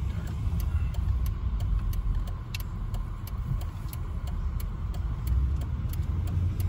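Mercedes-Benz car driving slowly, heard from inside the cabin: a low engine and road rumble with a light, steady ticking about three times a second.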